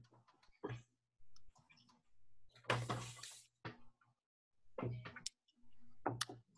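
Faint scattered clicks and a short rustle about three seconds in, heard over a video-call line, with a low hum that cuts in and out.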